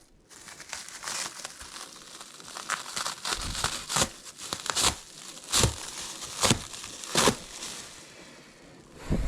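Packaging rustling and crinkling as the furnace is unpacked, with about five sharp crackles between about four and seven seconds in.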